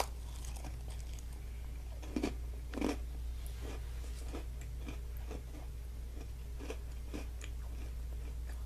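A person biting into and chewing small crunchy Hide and Seek mocha cookies: two louder crunches about two and three seconds in, then a run of quieter, evenly paced chewing crunches.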